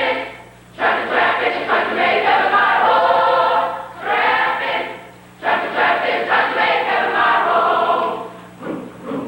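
Choir singing in phrases, with short pauses for breath between them.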